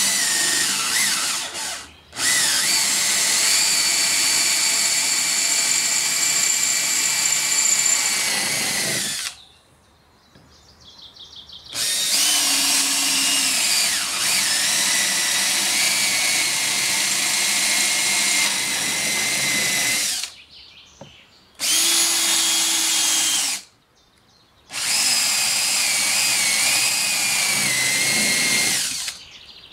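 Cordless drill running at speed, boring a pilot hole with a steady whine. It runs in four stretches, a long one, then a second long one after a pause of about three seconds, then two shorter ones near the end, each stopping cleanly.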